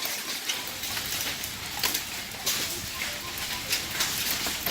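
Hailstones pelting down: a dense hiss of falling ice, broken by many sharp knocks as stones strike hard surfaces.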